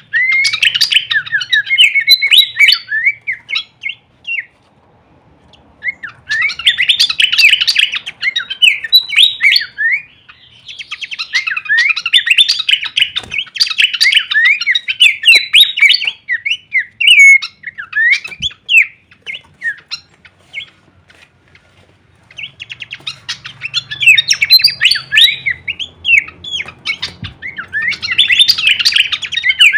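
Pelanduk semak (Horsfield's babbler) singing a fast, varied string of chirps and chattering notes in phrases several seconds long, with short pauses between them.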